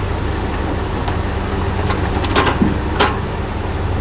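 Heavy diesel engine of logging equipment running steadily, with a few sharp knocks about two and a half and three seconds in.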